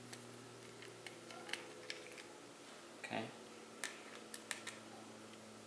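Faint, scattered light clicks and ticks of tiny screws being worked out of a tablet's copper cooling plate and handled.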